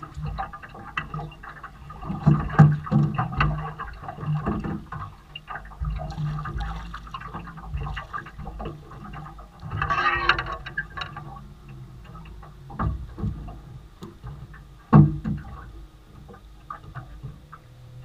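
Water splashing and dripping as a fish is lifted from the river in a landing net, with scattered knocks and thumps on the boat and a low steady hum underneath; the splash comes about ten seconds in, and the loudest knock a few seconds later.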